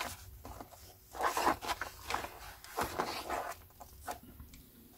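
Pages of a hardback book being turned and handled, several short papery swishes spread about a second apart.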